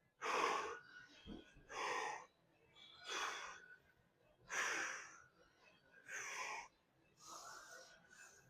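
A man breathing hard under exertion, with six forceful, rhythmic breaths about every second and a half, as he works through a set of shoulder lifts.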